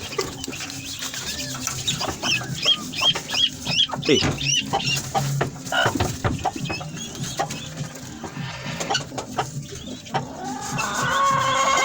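A flock of farm chickens clucking and calling, with a quick run of short, high calls a few seconds in and a longer drawn-out call near the end.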